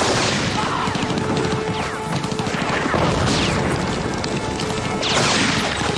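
Film battle sound mix: booms, crashes and volleys of gunfire under a music score, with several falling whistles.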